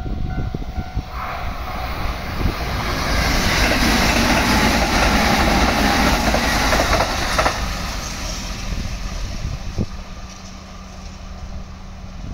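Kintetsu 23000 series Ise-Shima Liner limited express electric train passing close at speed. The rush of wheel and rail noise builds from about a second in, peaks midway, and falls away after about seven seconds. Low wind rumble on the microphone runs throughout.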